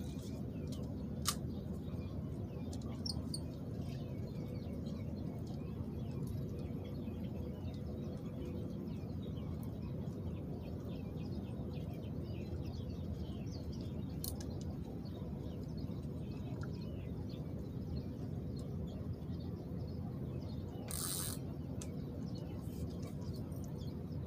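Lakeside outdoor ambience: a steady low rumble with faint high chirps scattered through it, a click about a second in and a short hiss near the end.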